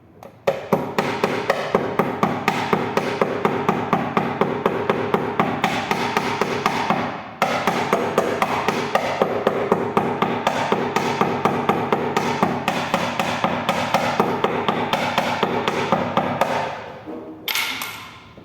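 A hammer tapping rapidly and steadily on ringing metal, about three blows a second, working out a dent. The blows break off briefly about seven seconds in, stop near the end, and are followed by one short, sharp noise.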